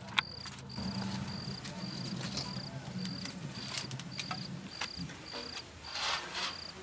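A cricket chirping steadily in short, even chirps of one high pitch, about two a second. There is a single sharp click just after the start and a brief rustle about six seconds in.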